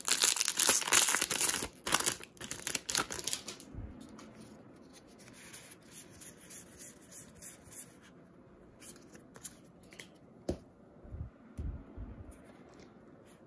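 A foil trading-card booster pack crinkling as it is torn open for the first few seconds, then the soft sliding and flicking of the cards being fanned through by hand, with occasional light clicks.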